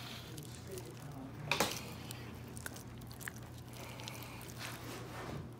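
Dissecting scissors cutting into a fish's gill area, with one sharp snip about a second and a half in and a few fainter ticks and wet handling sounds after it, over a steady low hum.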